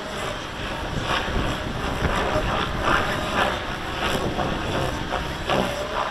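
Gaui X7 electric RC helicopter flying, its rotor and motor sound swelling and fading in irregular surges. Heavy wind buffets the microphone with a low rumble throughout.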